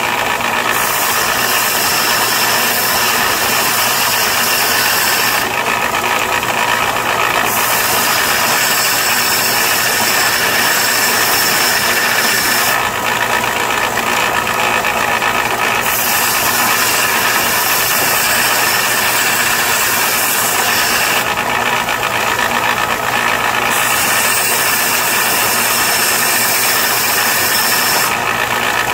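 Delta belt sander running steadily on an 80-grit silicon carbide belt, with a green stump grinder tooth pressed to the belt in four spells of high grinding hiss, each a few seconds long. Between the spells there are short breaks while the tooth is lifted off and only the motor and belt run.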